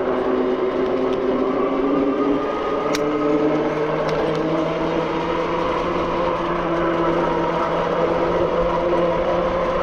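Zugo e-bike's electric motor whining while riding, its pitch rising a little about two seconds in and then holding steady, over rushing wind and tyre noise. A single sharp click about three seconds in.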